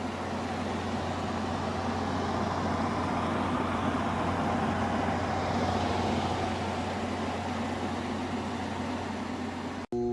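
Frigidaire window air conditioner running: a steady fan rush over a low hum, which cuts off abruptly just before the end.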